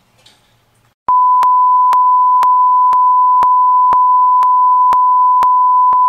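Steady, loud, single-pitch test tone, the broadcast tone that goes with colour bars when a feed has lost its signal, starting about a second in, with a faint click about twice a second.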